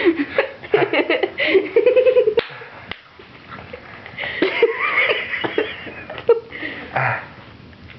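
A child giggling and making playful wordless vocal sounds, with two sharp smacks about two and a half and three seconds in.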